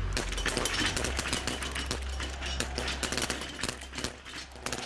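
Many .22 biathlon rifles firing prone at once, their shots overlapping in a rapid, irregular crackle.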